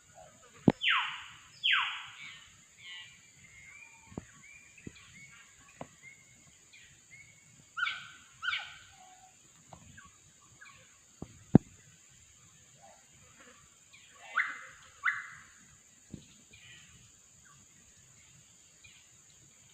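Wild bird calling loudly in pairs of quick falling calls, three times over, with softer chirps between and a steady high-pitched drone behind.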